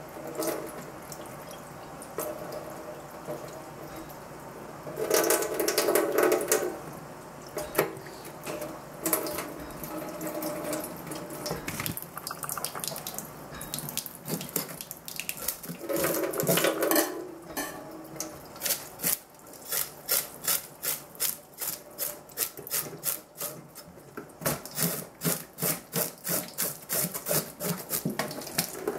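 Tap water running into a stainless steel kitchen sink as a whole fish is rinsed and cleaned under it, the stream surging louder a couple of times. In the second half, rhythmic rubbing strokes, two to three a second, as the fish is scrubbed.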